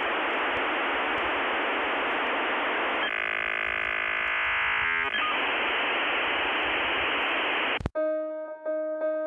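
Steady radio-like static hiss, broken for about two seconds in the middle by a buzzing tone. Near the end the static cuts off and soft piano music begins.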